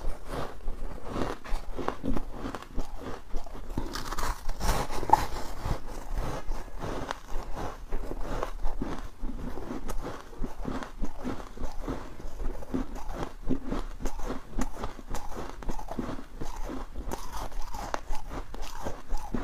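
Close-up crunching and chewing of mouthfuls of squeaky freezer frost ('buckwheat' ice), a dense, irregular run of crisp crunches that goes on throughout.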